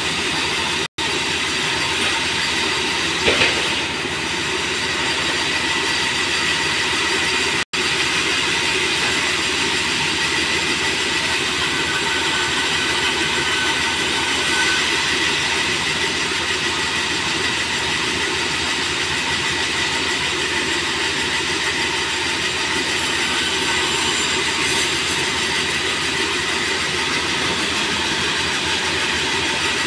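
Large vertical sawmill bandsaw running steadily and cutting merbau hardwood boards: a dense mechanical din with a thin high whine. One short loud knock comes about three seconds in.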